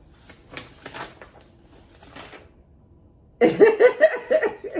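A few soft rustles, then about three and a half seconds in a person's voice, loud and broken into quick pulses.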